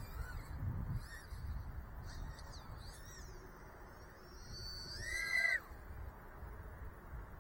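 Motors of a 2-inch, 2S micro FPV quadcopter whining, their pitch sliding up and down in short swoops as the throttle changes. The loudest is a longer punch about five seconds in, which rises and then falls away.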